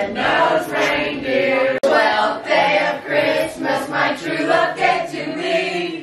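A group of people singing or chanting together, one woman's voice leading, with a brief break about two seconds in.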